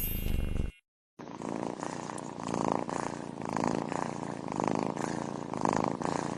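A domestic cat purring steadily, the purr swelling and easing about once a second with its breathing; it starts after a brief silence about a second in.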